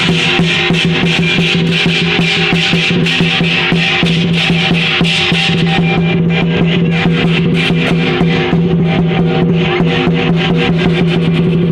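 Lion dance percussion band playing: a drum beaten fast and continuously with cymbals clashing, over a steady low hum.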